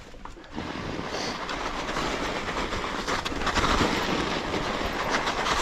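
Mountain bike rolling along a snowy trail: a steady rough noise of tyres through snow with the bike rattling, getting louder about half a second in.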